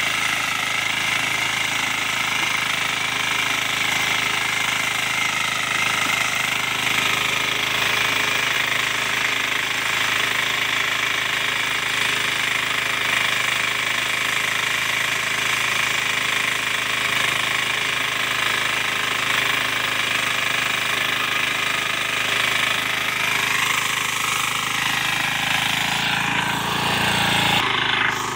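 Mini power tiller (power weeder) engine running under load as its rotary tines churn dry, dusty soil: a loud, steady mechanical clatter. The engine note shifts a little near the end.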